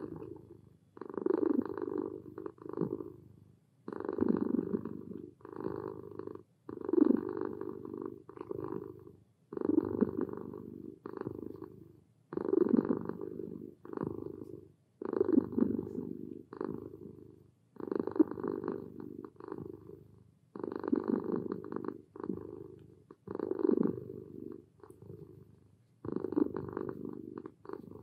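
Tabby kitten purring, relaxed, as it is stroked on the head. The purr comes in regular breath cycles, a longer stretch and a shorter one about every three seconds, with brief pauses between.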